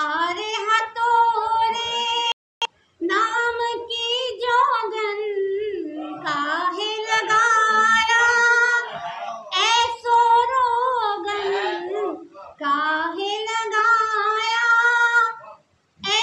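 A woman singing her poem unaccompanied, in long melodic phrases with held, wavering notes and short breaks for breath between them.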